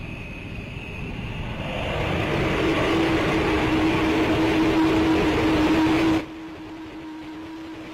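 Engine noise swelling to a loud steady run with a steady hum, then cut off suddenly about six seconds in, leaving a quieter run of the same hum.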